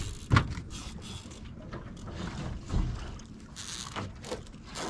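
Wind buffeting the microphone over water sounds on a small drifting fishing boat, broken by a few sudden thumps and knocks as a rod is grabbed out of its holder.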